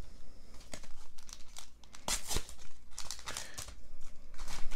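Pokémon booster pack's foil wrapper crinkling and being torn open by hand, in a string of short, irregular crackles that are loudest about two seconds in and again near the end.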